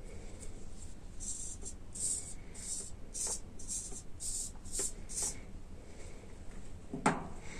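Small hobby servos whirring in a run of short high-pitched bursts, about two a second, as they are driven back and forth from a radio-control transmitter. A single knock near the end.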